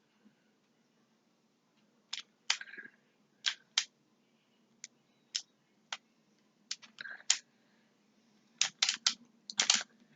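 Plastic triangle-shaped speed cube being turned by hand: irregular clicks of its pieces, some single, some in quick runs of two or three.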